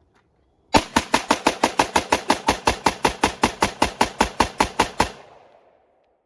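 AR-15 rifle firing 5.56 ammunition in a rapid string of more than twenty evenly spaced shots, about five a second, starting under a second in and stopping abruptly near the end, with a short echo after the last shot.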